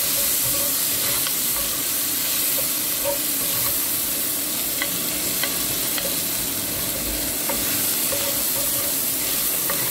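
Chopped onions and garlic sizzling steadily in hot fat in an enamelled pot, sautéing until fragrant, while a wooden spoon stirs and scrapes them, with a few light clicks of the spoon against the pot.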